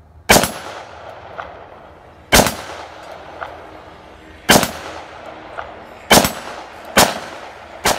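Six gunshots, about two seconds apart at first and then quicker near the end, each trailing off in an echo.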